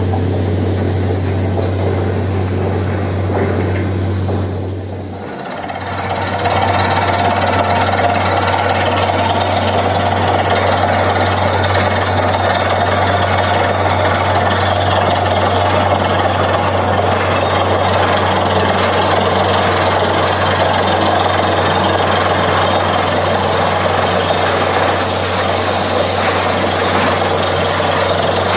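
A machine running steadily with a low, even hum; the sound dips briefly about five seconds in and then carries on unchanged.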